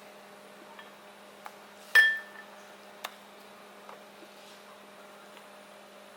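Kitchenware knocked together: a few light taps, and about two seconds in one sharp clink that rings briefly. A steady low hum runs underneath.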